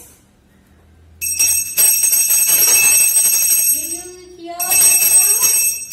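Small brass hand bell shaken and rung, a continuous high metallic ringing in two bouts with a short break about four seconds in.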